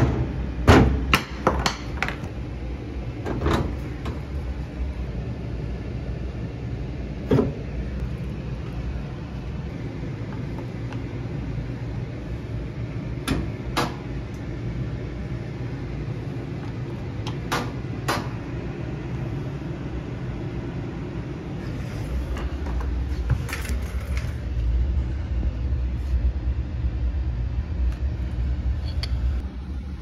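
A GE stackable washer, set to spin but not draining, running with a steady low hum, with sharp clicks and knocks scattered through; the first several come in quick succession as a flat blade pries at the tabs of the cabinet panel. A heavier low rumble comes in about three-quarters of the way through.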